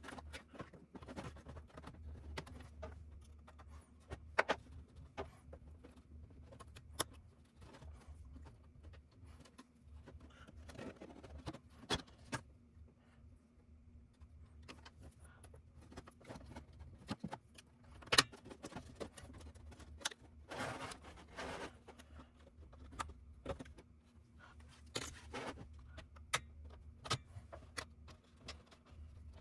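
Small hard clicks, taps and clinks at irregular intervals, with a brief scrape about two-thirds of the way through, as parts and screws of an electronics enclosure are handled during disassembly. A steady low hum runs underneath.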